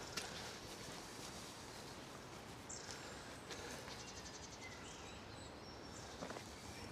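Quiet outdoor background with scattered small bird chirps and calls, including a quick trill about halfway through.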